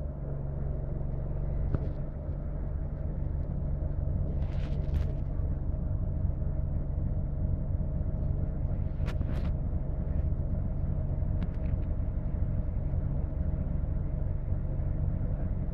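ADL Enviro 200 bus's diesel engine running with a steady low drone, heard from inside the passenger cabin, with a few brief clicks and rattles.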